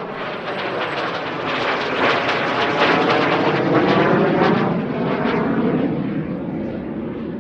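BAC Jet Provost's Viper turbojet passing overhead. The jet noise builds to a peak about three to four seconds in, then eases off as the aircraft moves away.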